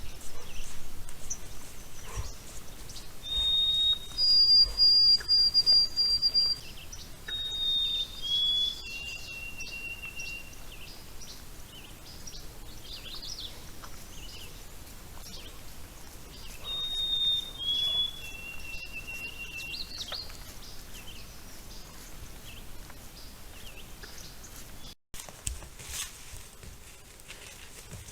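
A songbird singing clear whistled notes, each held at one pitch and stepping between pitches, in two songs several seconds apart.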